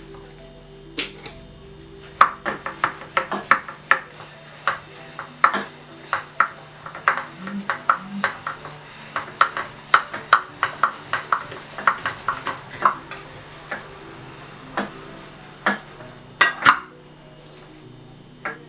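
Pots and pans being washed by hand, knocking and scraping in a quick run of short clinks, several a second for about ten seconds, then a few more near the end. Under it a steady droning music track plays.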